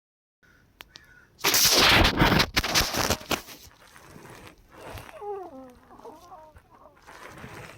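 A person's laboured breathing with wheezing: a loud, rough, rasping stretch about a second and a half in, then thin, squeaky, pitched wheezes that bend up and down. The wheezing comes from the lungs several hours after the last breathing treatment with Arformoterol and Pulmicort, as the bronchodilator wears off.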